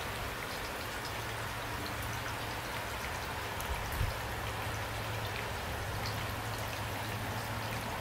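Steady rain falling, with scattered individual drops ticking through the hiss and one soft low thump about halfway through.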